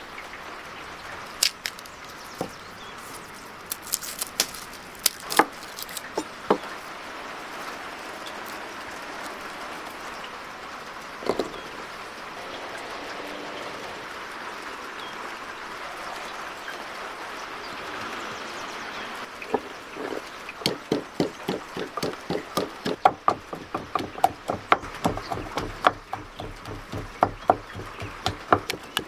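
Steady background hiss with a few scattered knocks, then from about twenty seconds in a rapid, regular pounding of about three to four strokes a second: garlic being crushed with a pestle in a wooden mortar.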